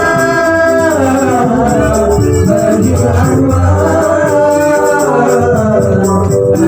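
Sholawat devotional song: a singer holds long, gliding melodic lines over hadrah percussion, with a pulsing low drum beat and rattling jingles.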